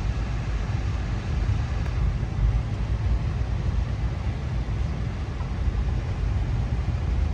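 Steady low rumble of a moving passenger train heard from inside a dome car: the wheels running on the rails and the car body riding over the track.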